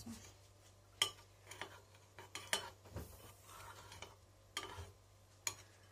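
Metal spoon stirring honey-water syrup in a ceramic bowl, with several irregular clinks against the bowl's sides.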